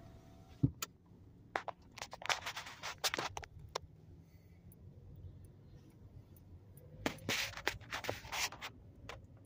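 Handling noise from a phone camera being moved and repositioned inside a car: a sharp click, then two spells of irregular scratching and rubbing. A steady low rumble from the car runs underneath.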